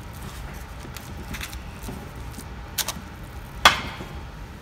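A spatula patting and scraping a chickpea loaf mixture down into a parchment-lined metal loaf pan, a few soft scrapes. About three and a half seconds in comes one sharp knock with a brief metallic ring, as the spatula or pan meets the steel counter.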